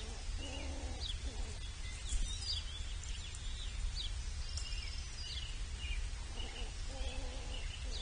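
Outdoor feeder-camera audio: small birds chirping and calling in many short, quick notes, over a steady low rumble. Two brief lower, stacked calls come through about half a second in and again about a second before the end.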